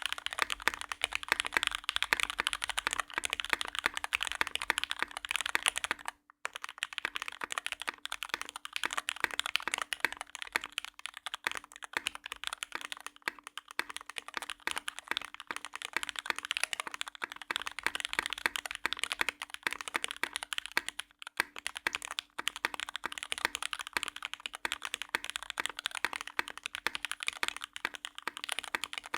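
Continuous fast typing on a mechanical keyboard with lubed Cherry MX Black Hyperglide linear switches, PBT keycaps and an aluminium plate, with two brief pauses. A faint steady hum lies underneath.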